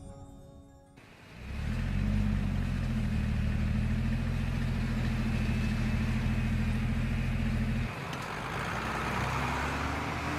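An engine running steadily with a low, even drone, which cuts off about eight seconds in and gives way to a rushing noise with a slowly rising whine.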